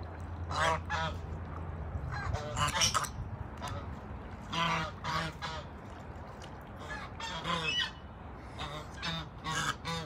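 Domestic geese honking: about five bursts of short, repeated honks, spaced roughly two seconds apart.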